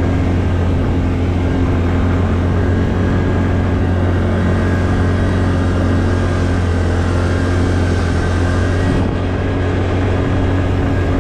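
ATV engine running steadily at an even pitch, a loud continuous low hum.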